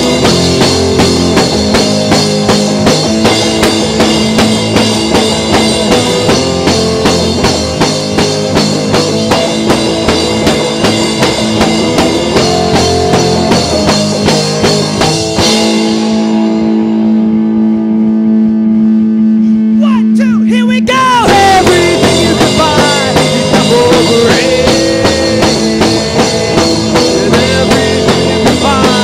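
Garage-pop rock band playing an instrumental passage of electric guitar, bass and drum kit. About halfway through, the drums drop out under a held chord for about five seconds, then a rising slide leads the full band back in.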